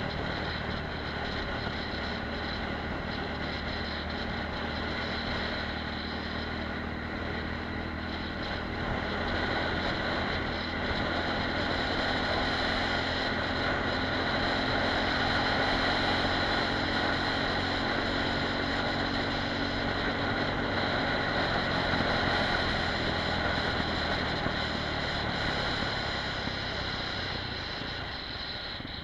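Apollo RX250 supermoto's 250 cc engine running under way, mixed with wind and road noise on a helmet-mounted camera. The sound grows louder through the middle and eases off near the end.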